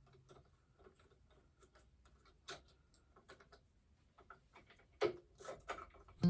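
Irregular light clicks and taps of hand tools and small metal engine parts being handled, with a few louder knocks about five seconds in.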